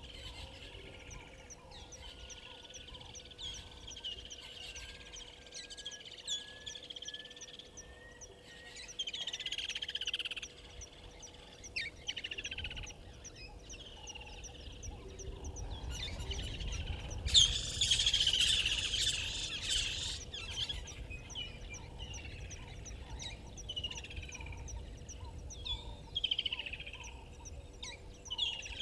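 Wild birds chirping and calling in the bush, many short repeated calls, with a louder, noisier burst lasting about three seconds around seventeen seconds in.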